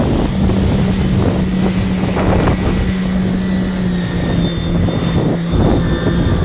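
Jet ski engine running under way, a steady drone, over the rush of water spray against the hull.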